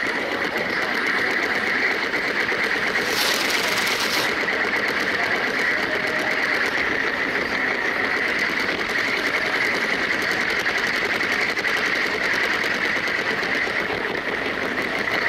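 LEGO train running fast on plastic track, heard from on board: a steady, rapid mechanical clatter of the wheels over the rails with a constant motor whine. A brief hiss comes about three seconds in.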